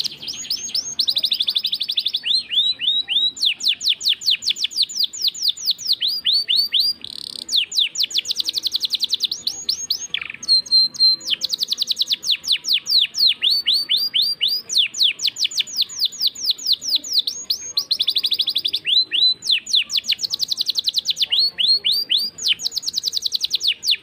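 Domestic canary singing a long, continuous song: fast series of falling whistled notes alternating with rapid rolling trills, with one brief pause about ten seconds in.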